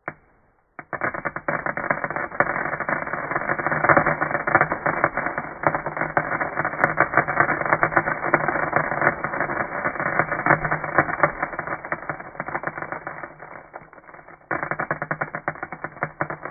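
Homemade fireworks sound effect made with natural materials and recycled items: a dense, rapid crackling of many small clicks, like a string of firecrackers, fading about fourteen seconds in and then starting again abruptly.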